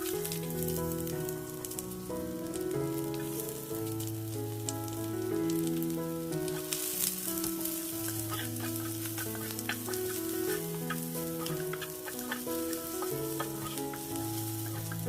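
Onions and curry leaves sizzling in hot oil in a kadai while being stirred, with scattered spatula clicks. Background music with a slow melody and bass line plays over it.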